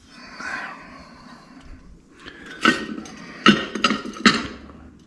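Hard clinks and knocks of engine parts and tools being handled on the Harley Twin Cam engine, four sharp loud ones in the second half over a low shuffling of handling.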